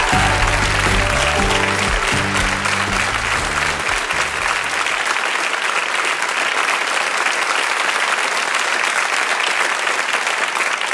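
Theatre audience applauding, with music under it that has a bass line. The music stops about five seconds in and the applause carries on alone.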